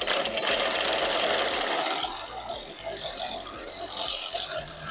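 Reciprocating saw (Sawzall) with a metal-cutting blade sawing through a copper refrigerant line, a steady rapid buzz of the blade stroking through the tube, loudest over the first two seconds.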